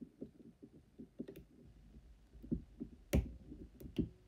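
Steel wire cutters snipping the twisted brass wire of an orthodontic separator down to a short pigtail, with handling of the plastic typodont: a run of small clicks, and sharper snaps about three and four seconds in.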